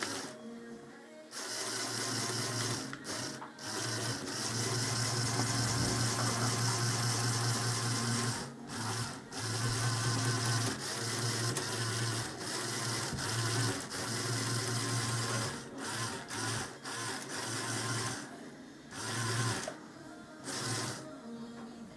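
Lego Technic piston engine running with a fast, steady mechanical whirr and rattle, stopping briefly several times and starting again.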